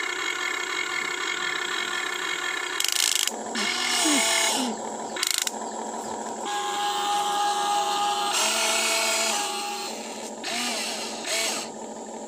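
Huina 1592 remote-control excavator's electric motors and gear trains whining as the boom, bucket and turntable move, in runs of a second or two that start, stop and shift in pitch, with a couple of sharp clicks.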